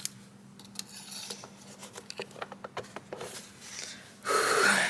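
Light metallic clicks, taps and scrapes of a flathead screwdriver and hand tools working on engine parts, then a loud, breathy rush of air about half a second long near the end, like a hard exhale of effort.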